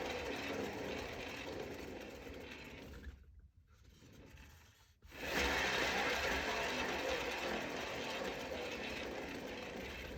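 Hand-spun cake-decorating turntable whirring on its bearing and slowly fading as it coasts. It drops out about three seconds in and is spun again about two seconds later.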